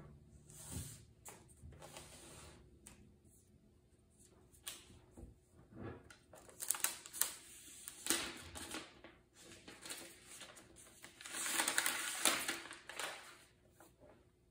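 Translucent protective wrap being pulled off a new MacBook Pro by hand: irregular rustling and crinkling, loudest in two stretches about six to nine and eleven to thirteen seconds in, with a few soft knocks as the laptop is handled.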